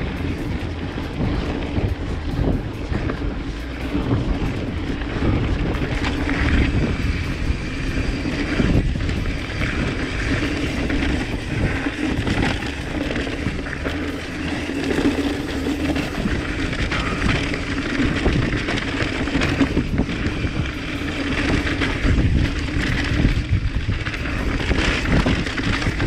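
Mountain bike riding down dirt singletrack: tyres rolling over packed dirt, with the bike rattling and knocking over small bumps, and wind rushing over the chest-mounted camera's microphone.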